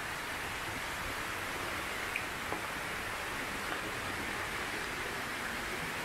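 Waterfall running: a steady, even rush of falling water, with a few faint clicks.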